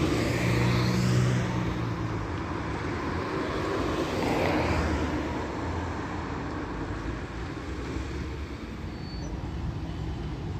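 Street traffic with a tram approaching: cars driving past, and a general swell of vehicle noise about four seconds in.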